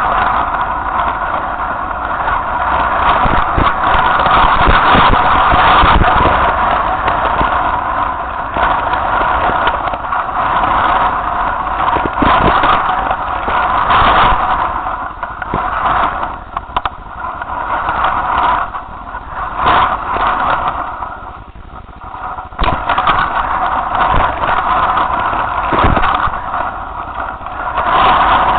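Strong wind buffeting a kite-mounted camera's microphone, rising and falling with the gusts, with occasional short knocks.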